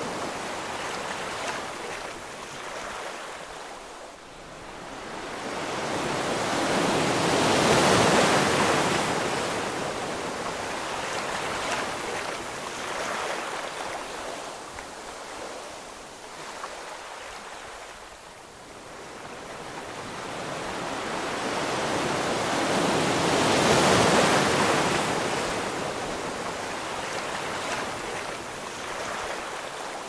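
Ocean waves washing in and receding in slow swells of surf. Two crests come about sixteen seconds apart, each building over several seconds and then fading away.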